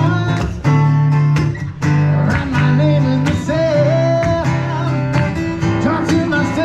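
Live music: strummed acoustic guitar over steady bass notes, with a sung melody in places.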